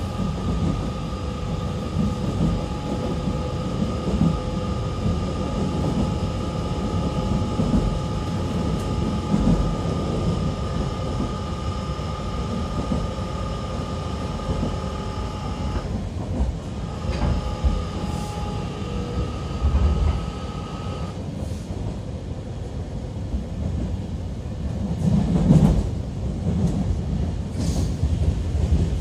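Running sound inside a JR Kyushu 813-series electric train's motor car at speed: rumble of wheels on rail with a steady whine from the inverter and traction motors. The whine drops out for a moment just past halfway and cuts off about two-thirds of the way in, leaving the wheel and track rumble, which swells briefly near the end.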